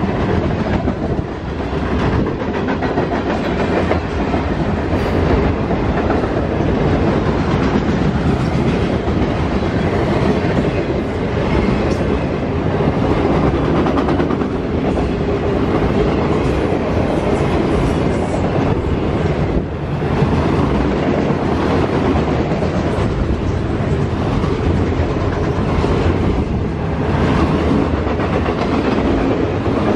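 Canadian Pacific freight train's cars rolling past at close range, a steady rumble with the wheels clattering over the rail joints.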